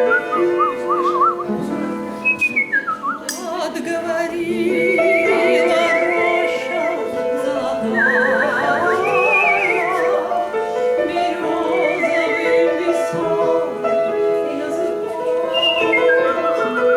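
Artistic whistling of a romance melody, high and warbling with wide vibrato and quick trills, over piano accompaniment.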